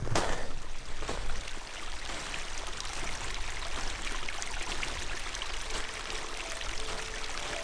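Steady rushing of running water, with a few faint held tones near the end.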